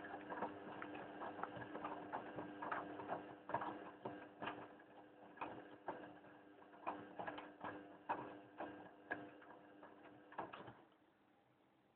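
Hoover boilwash washing machine running: a steady motor hum with irregular clicking and knocking, which cuts off suddenly near the end.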